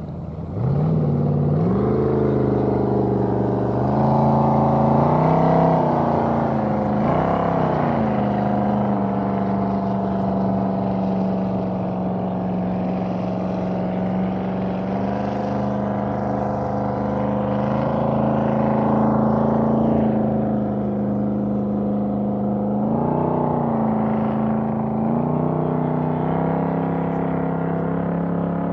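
An engine running close by. It comes in suddenly about a second in with a rising pitch, revs up and back down a few times in the next several seconds and once more near the end, and otherwise runs at a steady speed.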